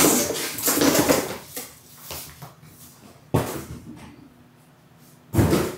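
Rustling and handling noise from something being handled and opened, fading after about a second and a half. A sudden knock comes about three seconds in, and another loud burst of rustling comes near the end.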